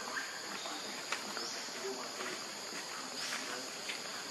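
High-pitched insect chorus droning steadily, with short rising chirps every second or two and a single sharp click about a second in.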